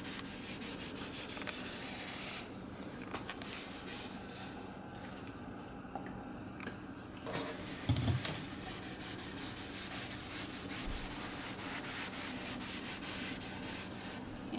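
A cloth rubbing oil into a wooden cutting board in quick repeated wiping strokes, lighter for a few seconds in the middle. A single dull knock about eight seconds in, from the board being handled.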